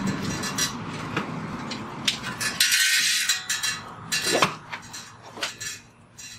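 Loose steel bicycle chain clinking and rattling as it is handled, just after being split with a chain breaker tool. It is an irregular run of metallic clinks, with a brief rattle about three seconds in.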